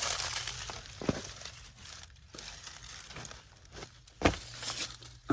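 Scuffling and crinkling of a person crawling through a crawl space, with two sharp knocks: one about a second in and a louder one near four seconds in.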